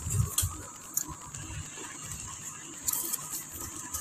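Cardboard box being opened by hand: scattered rustles, taps and scrapes of the cardboard, with a few sharper clicks.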